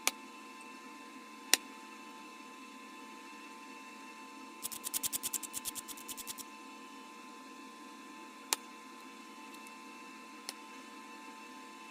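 Sharp single clicks of bottle glass being flintknapped, flakes snapping off the glass, with a quick run of about fifteen clicks, some eight a second, near the middle.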